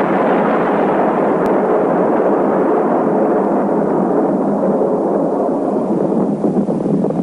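Sound of a huge explosion: a loud continuous rushing rumble that carries on steadily and slowly thins out, the higher part fading first.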